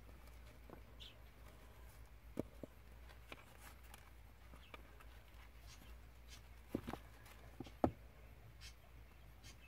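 Faint handling noise of fingers tying a narrow ribbon bow onto a wire loop on a felt mitten: soft rustling and a few light taps and clicks, the clearest ones near the end.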